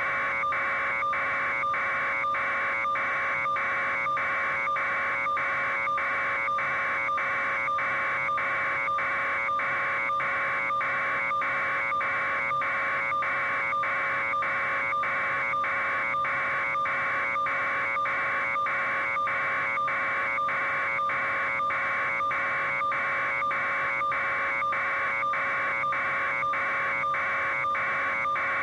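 A steady electronic buzz with a low fixed hum under it, broken by a regular tick about one and a half times a second.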